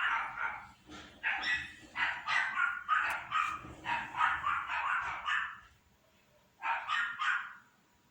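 Small dog barking in a rapid string of high-pitched barks, pausing briefly near the end before three more barks.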